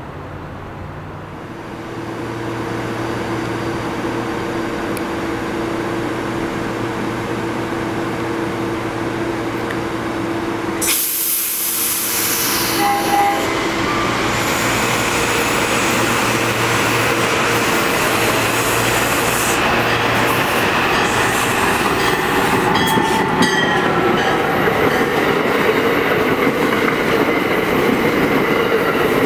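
Electric trains on the Northeast Corridor: first a steady hum from an electric train. Then, about eleven seconds in, it gives way abruptly to the louder, continuous rush and rail clatter of an Amtrak Northeast Regional, an AEM-7 electric locomotive with Amfleet coaches, passing at speed.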